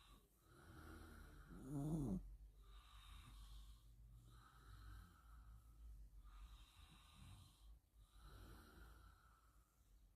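Puppy snoring in its sleep: faint, slow breaths about every two seconds, with the loudest, rasping snore about two seconds in.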